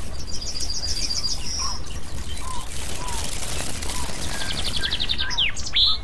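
Songbirds singing: a fast trill of evenly repeated high notes at the start and another near the end, with soft short whistles in between, over a steady low rumble.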